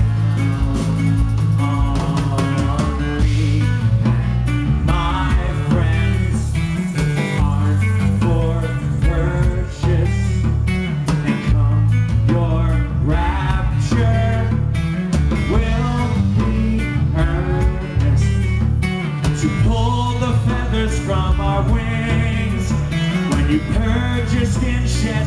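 Live rock band playing an instrumental break: drum kit, bass and electric guitar, loud and steady.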